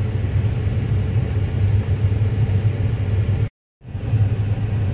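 Car engine running, heard from inside the cabin as a steady low rumble. The sound drops out completely for a moment about three and a half seconds in.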